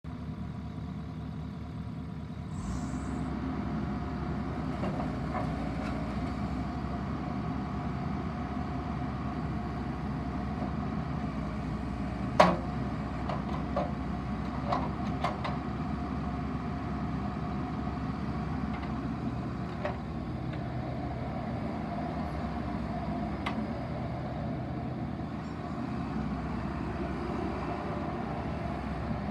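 Bobcat 337 mini excavator's diesel engine running steadily, stepping up in level about two and a half seconds in with a brief hiss, as the machine works its boom and bucket. Several sharp clanks come over it, the loudest about halfway through.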